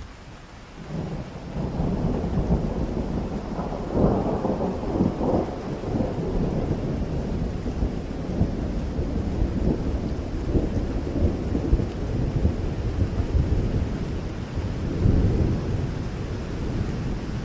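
Steady rain with a long, low thunder rumble that builds about a second in, is loudest around four seconds and swells again near the end.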